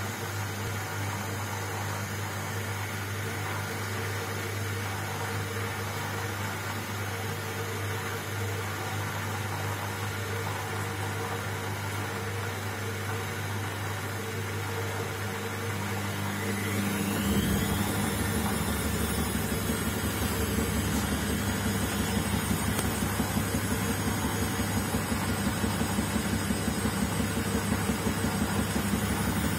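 Indesit front-loading washing machine running with a steady motor hum as the drum turns. About two-thirds of the way through, the motor whines up in pitch and the machine gets louder, running on with a fast pulsing beat: the drum speeding up into spin with an unbalanced load.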